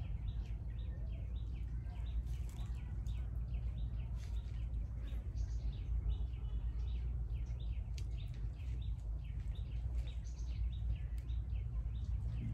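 Small birds chirping over and over in quick, high notes, over a steady low rumble.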